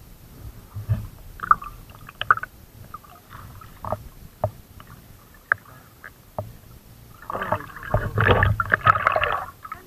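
River water sloshing and splashing close to the microphone as a swimmer moves through it, with scattered small splashes and then a louder run of splashing about seven seconds in, lasting a couple of seconds.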